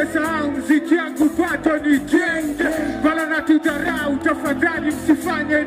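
Live band music with a man singing over a sustained backing tone.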